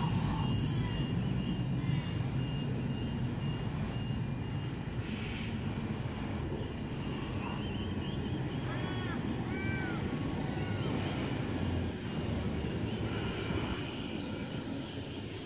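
Sydney Trains S set double-deck electric train approaching and pulling into the platform, a steady low rumble that eases slightly near the end. A few short high chirps come about eight to ten seconds in.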